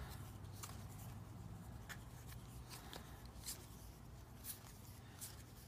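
Trading cards flipped through by hand, card sliding over card with faint soft flicks about once a second, over a low steady hum.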